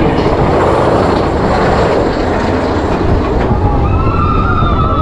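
Vekoma mine-train roller coaster cars running along the track: a loud, steady rumble and rattle of the wheels, with a thin high squeal joining about four seconds in as the train reaches a curve.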